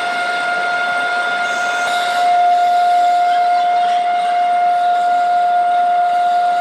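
A workshop machine running with a steady high-pitched whine over a constant hiss, a little louder from about two seconds in.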